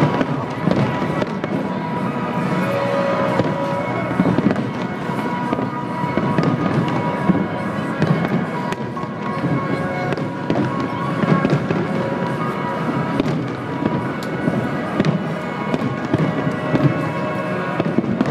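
Fireworks display bursting repeatedly, a steady run of bangs and crackles with no lull, over music playing underneath.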